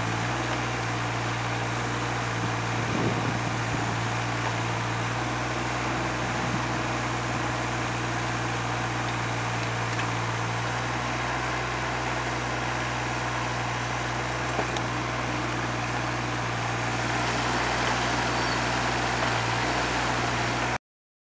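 JCB 8014 CTS mini excavator's diesel engine running steadily while the machine digs, with a constant low hum. The low part of the engine note changes about halfway through, and it gets slightly louder near the end as the boom swings up.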